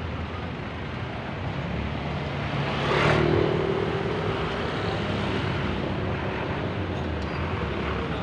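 Car engine running at low speed as a sedan creeps past, over steady street traffic, with a louder passing vehicle swelling up and fading about three seconds in.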